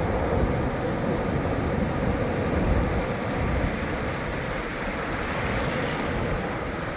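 Ocean surf: a steady wash of breaking waves with a low rumble.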